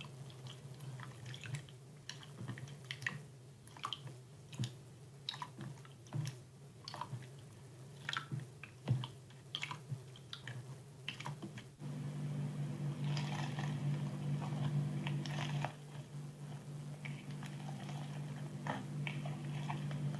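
Slime being squeezed and pressed by hand, making irregular crackling clicks and squishes. A steady low hum comes in suddenly about halfway through.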